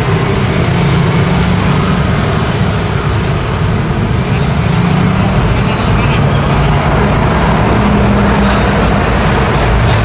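Street traffic: motor scooters and cars passing with their engines running, over a steady hum of road noise.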